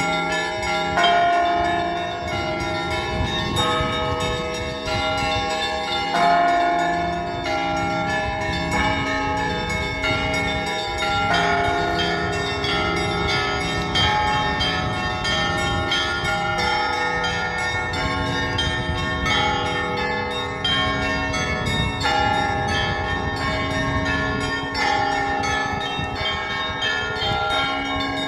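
Church bells of several different pitches rung by a bell-ringer in a continuous, fast peal, strokes following one another closely with no pause.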